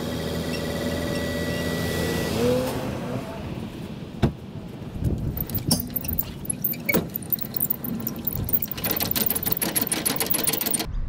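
Background music ends about three seconds in. After it comes low, steady car noise with scattered clicks and knocks, and a fast jangling rattle near the end.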